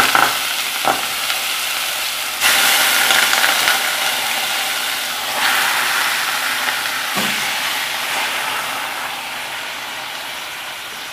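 Raw chicken pieces sizzling as they are laid into hot oil in an aluminium pot. The sizzle jumps up afresh each time another piece goes in, about two and a half and five and a half seconds in, then slowly dies down.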